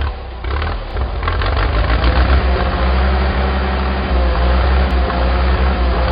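Heavy vehicle engine running steadily, a deep rumble with a faint wavering whine above it, laid over a cartoon work vehicle.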